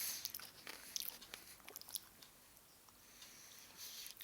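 Faint mouth sounds of someone biting and chewing an ice lolly: scattered small clicks and smacks.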